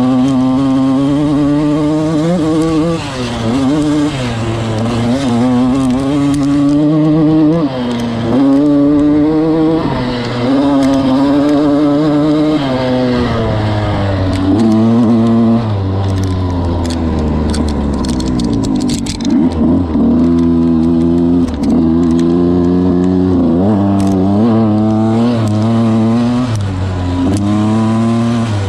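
Dirt bike engine heard from on board, revving up and shifting again and again, its pitch climbing and then dropping at each gear change. About midway the throttle eases and the pitch sinks low for a few seconds before the engine picks up and revs through the gears again.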